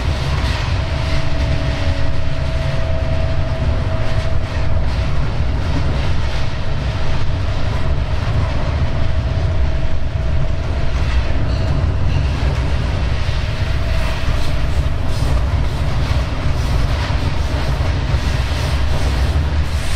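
Vossloh G 1206 diesel-hydraulic locomotive running under way, heard from the cab: a steady low engine rumble with wheels clicking over rail joints and points. A thin whining tone runs through roughly the first half.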